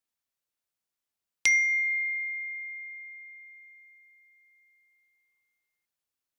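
Dead silence, then about a second and a half in a single bell-like ding: one clear high tone that fades away over about four seconds.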